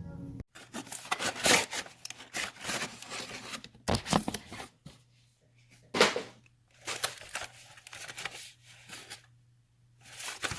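Toy packaging being torn open and handled: irregular bursts of tearing, rubbing and crinkling, with the loudest rips about a second and a half and six seconds in.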